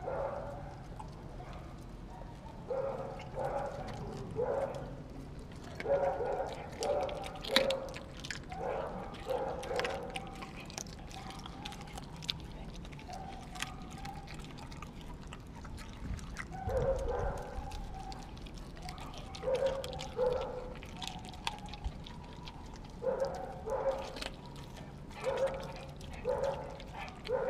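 A German shepherd mix dog chewing and gnawing a piece of raw meat, in repeated bursts of chewing with short pauses and a longer lull midway.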